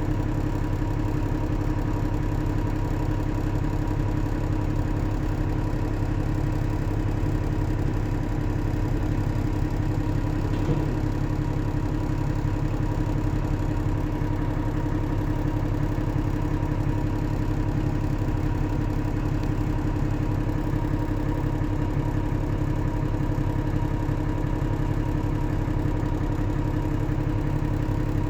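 New Holland B90B backhoe loader's diesel engine running at a steady, unchanging speed, with one brief knock about ten seconds in.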